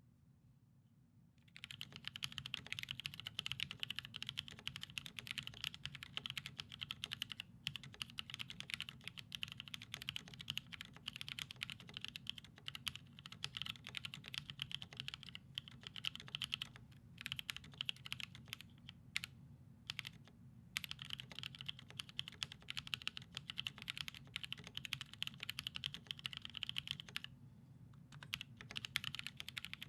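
Typing on an Alice-layout mechanical keyboard with NovelKeys Cream linear switches, broken in with 100k keypresses, and Durock v2 stabilisers: a fast, continuous run of keystrokes with a few brief pauses, starting about a second and a half in. Close-miked in an untreated, live-sounding room.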